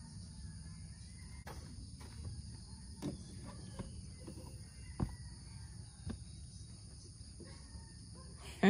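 Steady chorus of insects, a continuous high buzz in several bands, over a low outdoor rumble. A few short soft knocks and rustles come from pillows and bedding being laid in the car's cargo area.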